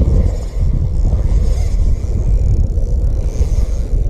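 Wind buffeting the camera microphone: a loud, uneven low rumble.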